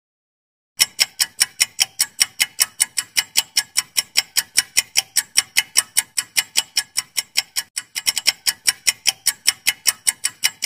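Clock-ticking countdown sound effect: sharp, even ticks at about four a second, starting about a second in and cutting off at the end, with a short run of quicker ticks about eight seconds in.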